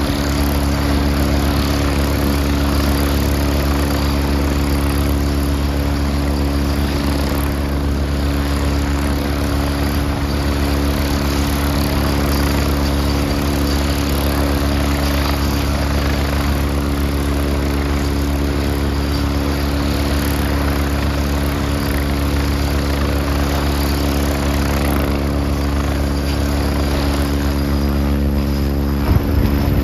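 Leonardo AW109SP helicopter running on the ground, its twin turboshaft engines and spinning main rotor making a steady hum with several steady tones. Near the end it grows louder in uneven surges.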